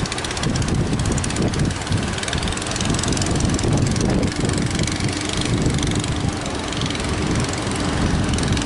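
Fishing boat engine running steadily under a constant rush of noise from surf and wind.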